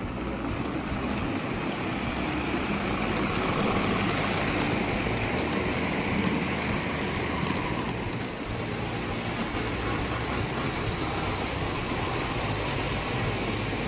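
Prewar Lionel 225E O gauge locomotive and its cars running on tinplate three-rail track: a steady rumble of motor, gears and wheels with many small clicks, getting louder for a few seconds about three seconds in.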